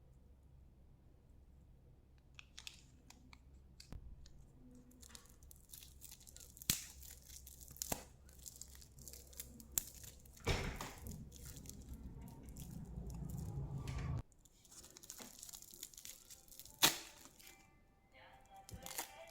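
Candy packaging being torn open and crinkled by hand: irregular crackling and rustling with several sharp snaps, and a few seconds of low rumbling handling noise in the middle. Music comes in near the end.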